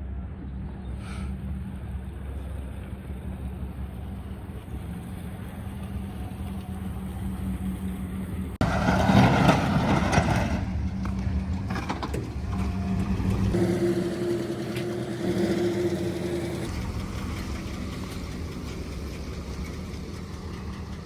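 Plow truck engine running steadily, with a louder, noisier stretch about nine seconds in. The sound changes abruptly a few times.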